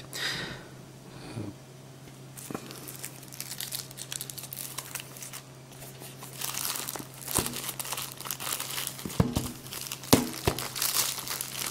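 Clear plastic shrink-wrap film being torn and peeled off a smartphone box, crinkling and crackling irregularly, busiest in the second half, over a faint steady low hum.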